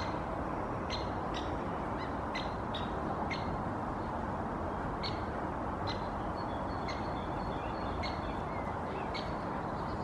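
Male great spotted woodpecker giving sharp, short 'kik' calls, irregularly about one or two a second, over a steady low background rumble.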